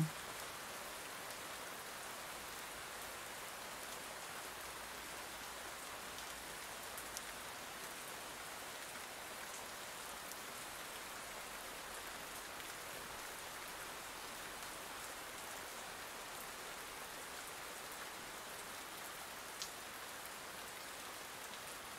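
Steady rain falling, an even hiss with a couple of faint ticks, one about seven seconds in and one near the end.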